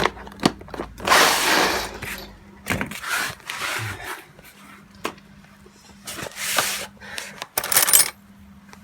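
Small metal rivets clinking and rattling as they are rummaged through and picked out of a container, in several short rattles with sharp clicks between.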